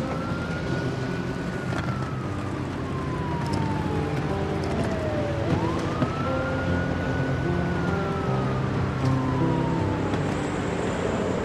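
Emergency-vehicle siren wailing: its pitch rises quickly, then falls slowly over about five seconds, twice, and starts to rise again near the end.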